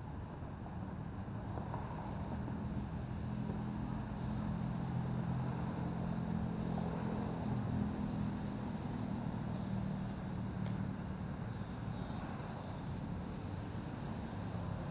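Low, steady hum of motor-vehicle traffic, growing louder over the first few seconds and easing off again toward the end.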